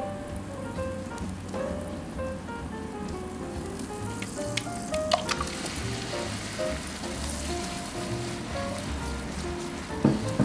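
Butter sizzling in a frying pan, the sizzle getting brighter about halfway through as beaten egg is poured in and stirred with chopsticks for scrambled eggs. A few sharp clicks from the chopsticks against the pan; light background music plays throughout.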